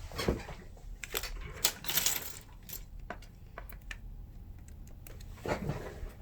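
Small hard tools and phone parts clicking, tapping and clattering as they are handled on a work surface, with a busy cluster about two seconds in and another near the end.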